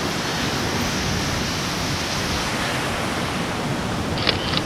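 Ocean surf washing onto a sandy beach: a steady rush of waves.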